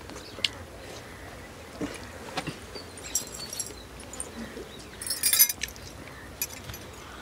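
A dog chewing and crunching a crispy corn fritter (pakodi), with scattered crackly bites and two louder bursts of crunching about three and five seconds in.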